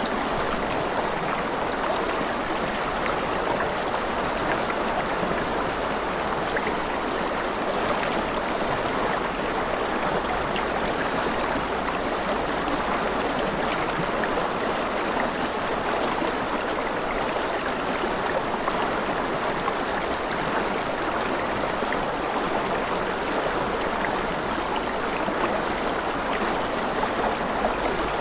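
River water rushing steadily over rocks, an even, unbroken wash of flowing water with small splashes.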